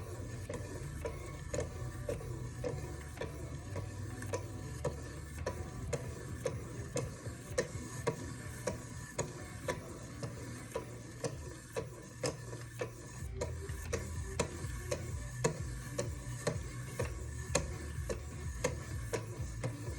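Fine ceramic stones on a Wicked Edge guided sharpener being stroked along a knife edge, with a steady ticking of about two clicks a second over a low hum.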